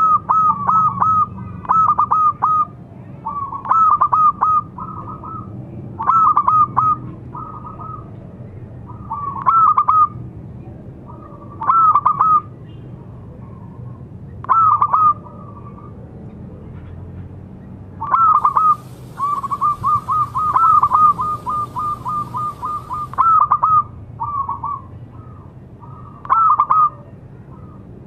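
Zebra dove (perkutut) cooing: short bursts of a few quick, clipped notes about every two seconds, with a pause of about three seconds past the middle, then a longer rapid string of notes lasting about four seconds.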